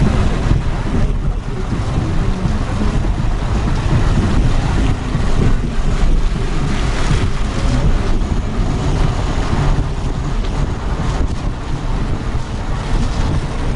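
Wind buffeting the microphone: a loud, unsteady rumble that fills the whole stretch.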